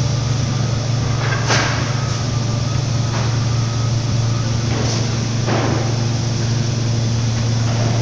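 Woodpecker pallet nailing machine running with a steady low hum. About four sharp knocks sit irregularly over the hum, the loudest about a second and a half in.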